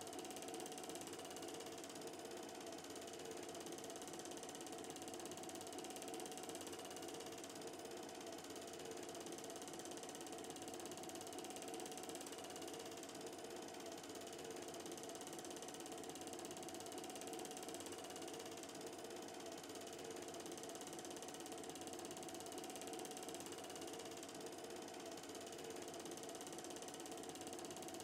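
Film projector running a reel: its film-advance mechanism makes a steady, even mechanical chatter, with no soundtrack music or voices.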